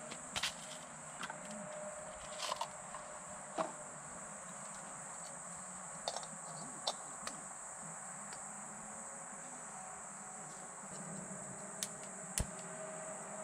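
A steady high-pitched chorus of insects, typical of crickets, with a few sharp clicks and taps scattered through it.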